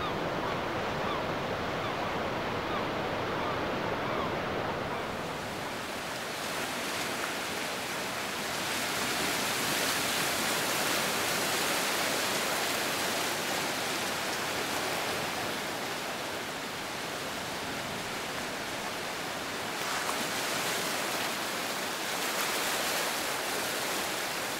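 Sea surf breaking on a sandy beach: a continuous rushing wash of waves that swells and eases, with the hiss growing brighter a few seconds in.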